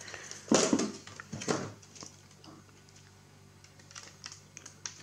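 Circuit boards and a ribbon cable being handled and moved aside inside an old voltmeter's metal chassis: a few knocks and rattles in the first two seconds, then a few faint clicks near the end.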